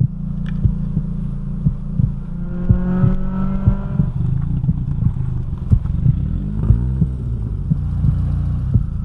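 Car engine running with a steady low rumble and sharp clatter and ticks, rising briefly in a short rev and falling back about seven seconds in.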